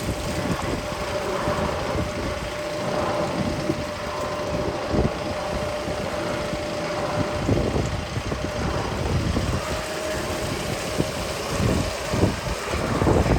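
Magnum XL 200 roller coaster train running along the track: a steady rumble with irregular thumps, wind buffeting the microphone, and a steady hum that fades out near the end.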